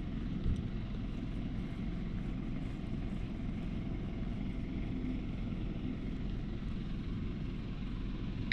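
Calico cat purring, a steady low rumble close to the microphone while it is scratched and petted. A short bump about half a second in.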